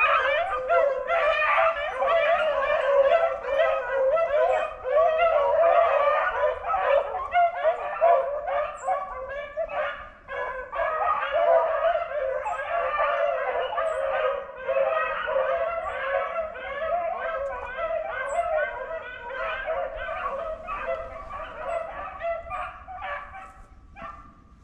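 A pack of hunting beagles baying together, many voices overlapping without a break, the sound of hounds giving chase on a rabbit's scent. The cry grows fainter over the last several seconds.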